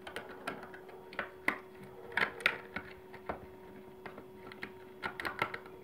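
Irregular small clicks and crackles of a roll of decorative tape being handled, its end picked at with fingernails, with the loudest clicks in the middle and a quick cluster near the end.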